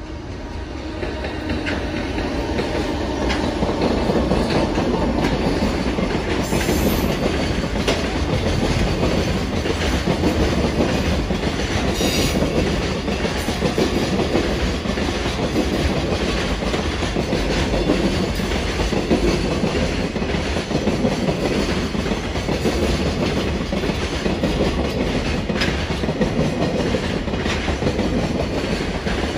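JR Freight container train hauled by an EF210 electric locomotive rolling past, its wagon wheels clattering rhythmically over the rail joints. The rumble builds over the first few seconds as the train arrives, then holds steady while the container wagons go by.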